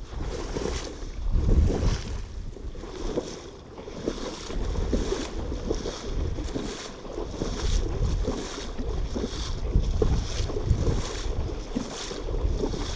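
Wading footsteps sloshing through shallow marsh water, one splash about every two-thirds of a second, with wind rumbling on the microphone.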